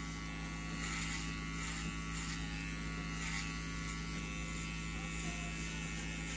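Electric hair clippers running with a steady, even hum.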